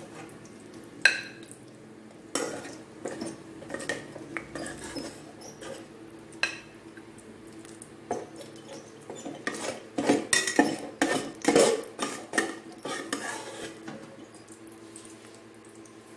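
A spatula scraping, tapping and stirring against the aluminium inner pot of an electric rice cooker, working through rendered chicken fat and seasoning. Irregular clicks and scrapes, busiest from about ten to thirteen seconds in.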